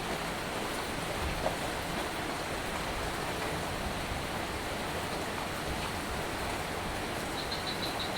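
Steady rain falling, an even hiss without a break. There is one small tap about a second and a half in, and a short run of faint high ticks near the end.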